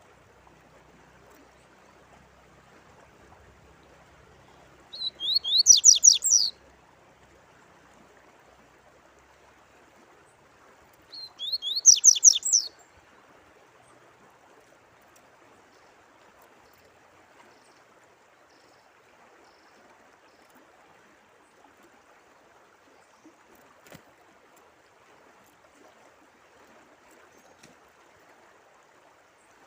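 A songbird sings two short phrases of rapid, high sweeping notes, about five and about eleven seconds in, over a faint steady sound of running water.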